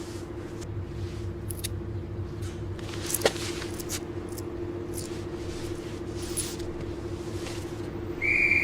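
Vehicle engine running with a steady low hum and faint scattered clicks, one sharper click about three seconds in. A loud high-pitched tone starts near the end.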